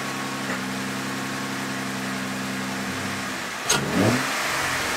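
Jeep Wrangler's 3.6 L Pentastar V6 idling steadily just after a start, warming up after sitting for a couple of weeks. A short click comes a little before the end, after which the idle is heard close up in the engine bay with more hiss.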